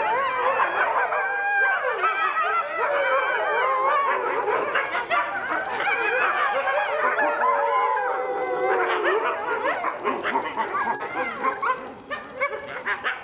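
Several red wolves howling together in a chorus of overlapping, wavering howls, which thin out near the end. The howling is set off by a siren.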